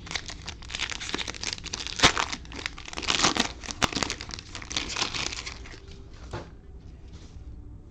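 Cellophane wrapper of a trading-card cello pack being torn open and crumpled, a dense crinkling with sharp crackles that is loudest about two and three seconds in and dies down after about six seconds.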